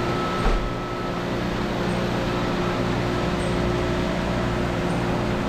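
Steady mechanical drone made up of several even hum tones, with a single low thump about half a second in.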